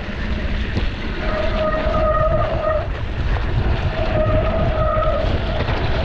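Wind rushing over the camera microphone and rumble from a mountain bike rolling over rough ground. Twice a steady high squeal rises over it and holds for a second or so.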